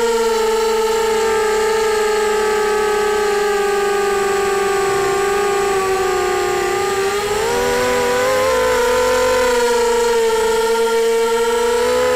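Brushless motors and propellers of a QAV250 FPV quadcopter whining steadily, heard from the onboard camera. The pitch sags slowly, then climbs back up about seven to eight seconds in as the motor speed changes.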